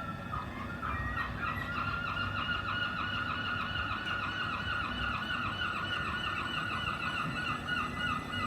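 Class 377 Electrostar electric multiple unit pulling away from the platform, giving a steady high-pitched warbling squeal that pulses about five times a second, over a low rumble.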